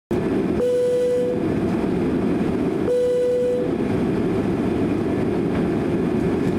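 Boeing 767-300 cabin noise on the takeoff roll: the jet engines at takeoff power and the rumble of the runway, heard through the fuselage as a loud, steady roar. Two short steady tones sound over it, about half a second in and again about three seconds in.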